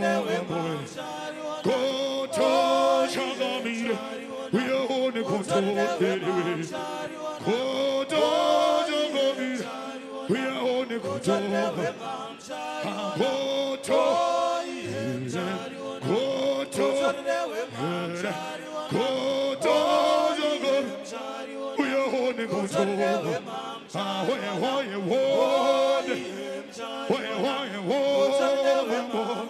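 Voices singing a chant-like song in phrases that repeat every couple of seconds, with held notes and no clear instruments.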